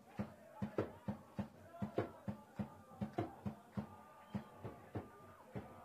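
Football stadium sound during a match: a quick run of sharp knocks or claps, about four a second, with voices shouting over them.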